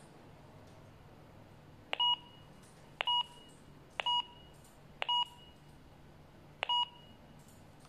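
Keypad beeps of a KOMVOX GT60 walkie-talkie: five short electronic beeps, roughly a second apart, one for each button press as the radio is stepped through its menu.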